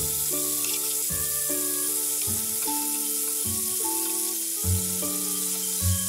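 Pork-wrapped soft-boiled eggs sizzling in a frying pan in bubbling yakiniku sauce and doubanjiang, under background music whose notes change about once a second.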